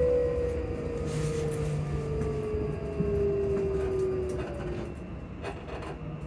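Class 334 electric multiple unit's traction motors humming under the floor, their tone falling steadily in pitch as the train slows into a station and fading out near the end. Beneath it runs a steady low rumble of the running gear on the rails.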